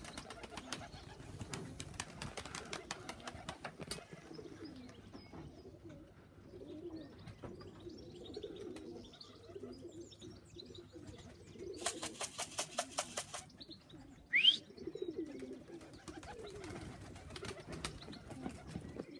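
Domestic pigeons cooing at a loft. About twelve seconds in there is a brief rapid rattling, and soon after a short rising whistle.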